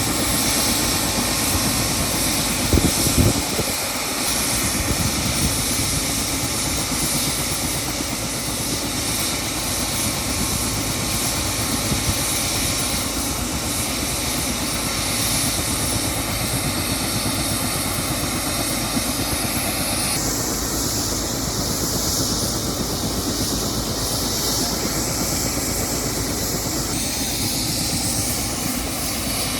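Helicopter running steadily.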